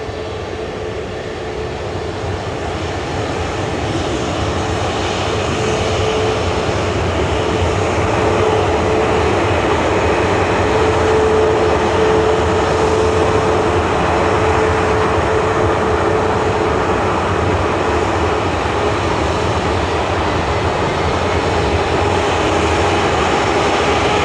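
Turbofan engines of an easyJet Airbus A320-family jet airliner running with a steady whine over a broad drone. The sound grows louder over the first several seconds, then holds steady, as the engines build power for takeoff.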